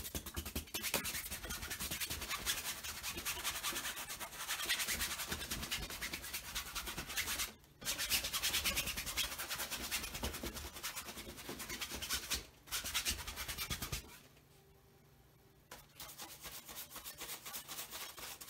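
Stiff paintbrush scrubbing paint onto a stretched canvas in rapid back-and-forth strokes, a dry rubbing scratch. It breaks off briefly twice, goes quiet about 14 s in, then resumes with softer strokes near the end.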